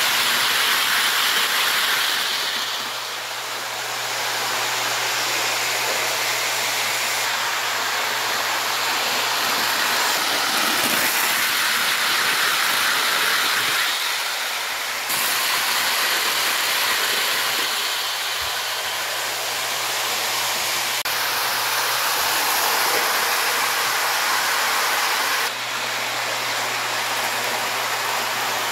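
Lionel 2056 Hudson-type O gauge steam locomotive and passenger cars running on three-rail track: a steady rolling hiss from the motor and wheels over a low hum. The level dips and rises a few times as the train comes and goes past.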